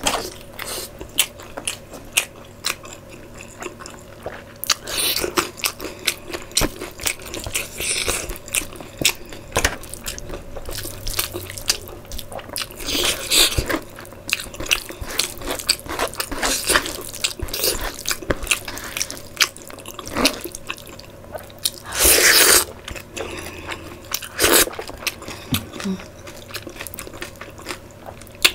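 Close-miked eating by hand: wet chewing, lip smacks and squelchy clicks as fingers mix and lift soft curry and dhido to the mouth, with a longer, louder noise about 22 seconds in.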